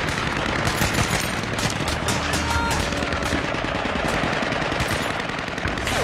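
Sustained automatic gunfire in a firefight: a dense run of overlapping shots with no break.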